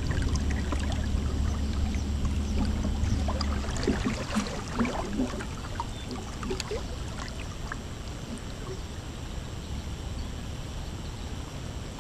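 Electric trolling motor humming steadily, then switching off a little under four seconds in. After that, water lapping against the boat's hull, with scattered light clicks.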